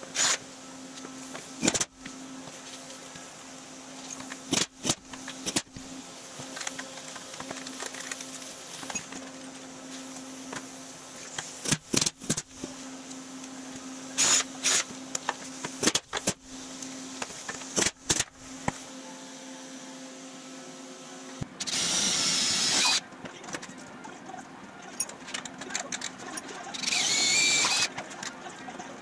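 Thin sheet-aluminum body panel being handled and fitted: a string of sharp clicks and metallic taps over a steady hum. Near the end come two short power-drill bursts, about five seconds apart.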